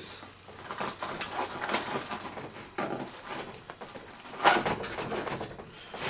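A bunch of metal bump keys clinking and the nylon pack rustling as the keys are stowed in its top pouch: irregular small clicks and handling noise, with a louder rustle about four and a half seconds in.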